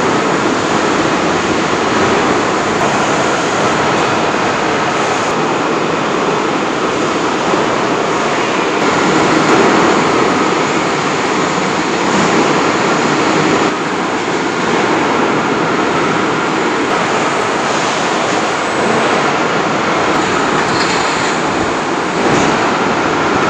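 Steady, loud machinery noise of a car-body stamping plant's press and conveyor lines, an even roar with a few faint clicks over it.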